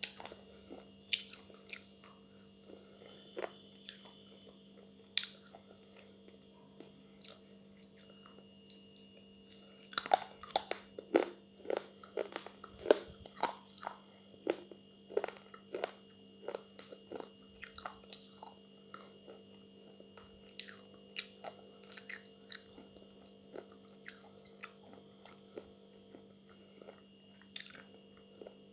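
Close-up chewing and crunching of broken pieces of edible slate pencil, a baked clay stick. Sparse crunches at first, then a flurry of loud bites and crunches about ten seconds in, easing back to lighter chewing, over a steady low hum.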